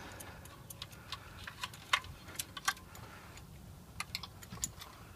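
Irregular light clicks and ticks of hands handling and pulling on furnace control wiring, over a low steady hum.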